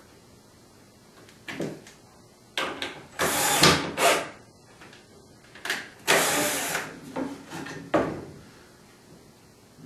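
Power drill driving screws through wooden slats into the back rail in several short bursts, each under a second, starting about two and a half seconds in.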